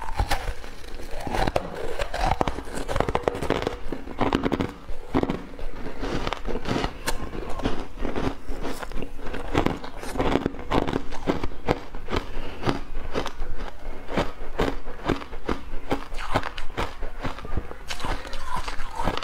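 Ice being bitten and crunched between the teeth, close to a clip-on microphone: a continuous run of sharp cracks and crunches.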